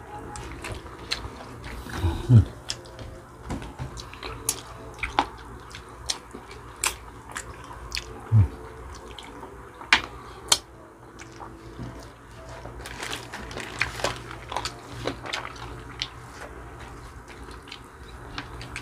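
Close-miked eating sounds of two people eating chicken feet adobo by hand: wet lip-smacking, sucking and chewing with many small sharp clicks. Twice, at about two and eight seconds in, a short low voice sound breaks in.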